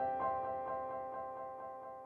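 Background piano music: a note struck just after the start, then a held chord fading away.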